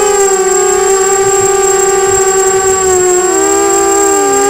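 250-size FPV racing quadcopter's brushless motors and propellers whining, heard from the drone's onboard camera. The pitch holds steady, then dips and climbs again near the end as the throttle changes, with a thin steady high tone over it.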